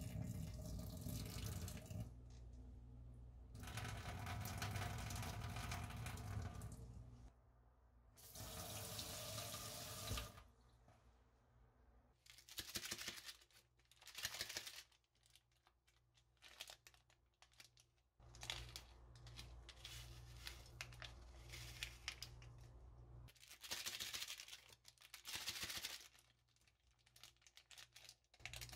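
Noodle cooking water trickling and splashing from a pot into a stainless-steel sink as instant noodles are drained, in several long pours. Later come shorter crinkling and tearing sounds of seasoning sachets being opened and their powder shaken over the noodles.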